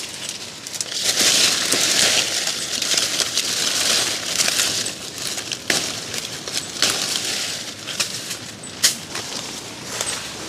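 Leaves and twigs of an ackee tree rustling and crackling as a climber moves through the branches picking fruit. The rustle is loudest in the first half, with a few sharp snaps later.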